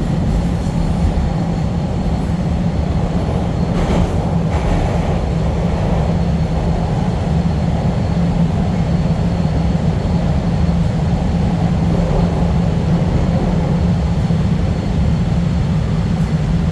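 CTA Blue Line subway train running through the tunnel, heard from inside the car: a steady rumble with a low hum, and a couple of brief clanks about four seconds in.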